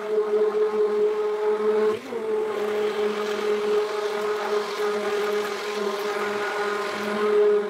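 Electric immersion (stick) blender running steadily in a bucket of thickening xanthan-gum mixture, a steady motor whine with a brief dip and wobble in pitch about two seconds in.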